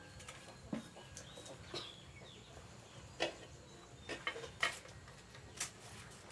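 A few light, sharp knocks and clinks, scattered about a second apart, the clearest about three seconds in and near the end.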